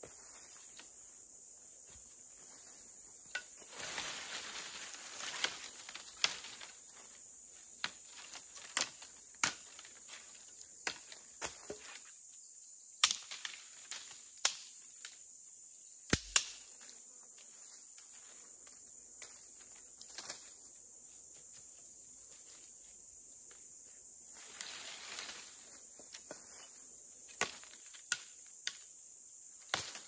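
Wood being handled for shelter building: scattered sharp knocks and snaps of sticks and branches, about a dozen, with two short stretches of rustling, over a steady high hiss.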